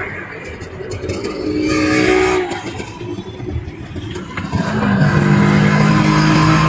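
Traffic noise heard from inside a moving car, with a short higher-pitched sound about two seconds in. About five seconds in, a loud, steady, low engine drone rises as an auto-rickshaw runs right alongside.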